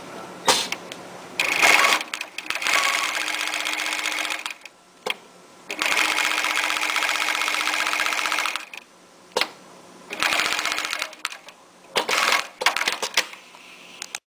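Dürkopp Adler 669 post-bed industrial sewing machine stitching in several start-stop runs, the longer ones about three seconds each. A faint steady hum runs through the pauses between them.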